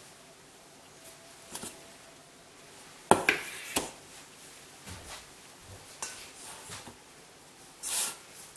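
Stainless steel tray and bowl handled on a countertop: a few light knocks and clinks of metal, the loudest a pair of clanks about three seconds in, then a short brushing swish near the end.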